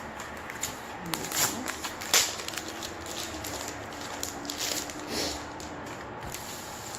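Packaging and merchandise being handled: rustling and crinkling with light clicks, and one sharp snap about two seconds in. A faint steady low hum sits under the middle of it.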